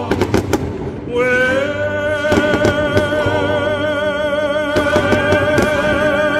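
Fireworks going off in sharp bangs, several near the start and a cluster about five seconds in, over a slow song in which a singer holds one long note with vibrato from about a second in.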